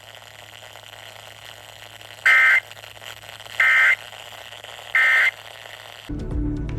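Emergency Alert System end-of-message signal: three short bursts of SAME digital data, each a harsh two-tone buzz about a third of a second long, about 1.3 seconds apart, over a steady hiss. It marks the close of the alert test.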